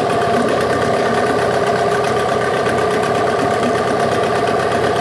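Yamaha 8 hp two-stroke outboard motor running steadily at a constant speed.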